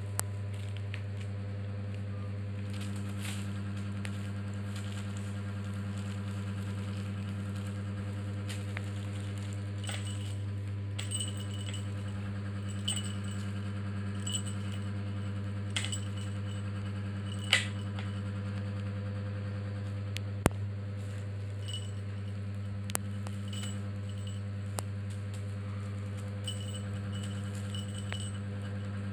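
Small jingle bell and plastic cat toy tinkling and clicking now and then as a kitten bats at them, over a steady low hum.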